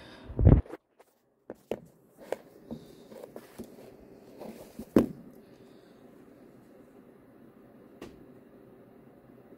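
Handling noise from a phone being moved around and set down: a loud thump about half a second in, scattered knocks and rubs, a second loud thump about five seconds in, then a faint click about eight seconds in, with quiet room noise between.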